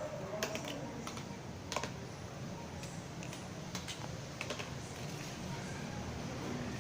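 Light, irregular taps and clicks of a disposable cup being batted and knocked about by a playing kitten.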